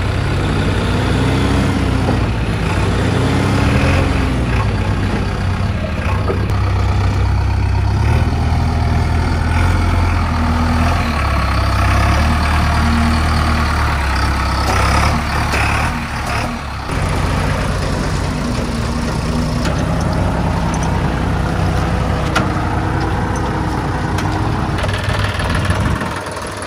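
Diesel engines of a JCB 3DX backhoe loader and a John Deere tractor running, revving up and down a few times in the first seconds, then running on steadily.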